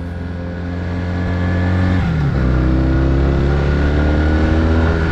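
Motorcycle engine heard from the saddle, pulling harder and louder as the bike gathers speed. About two seconds in the pitch drops on an upshift, then the revs climb steadily again in the next gear.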